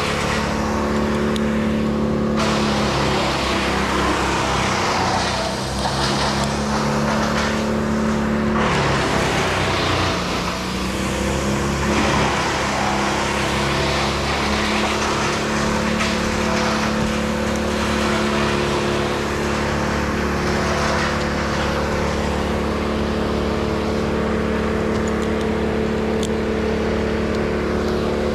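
Engine running steadily at high speed, its pitch sagging briefly about ten seconds in and then recovering.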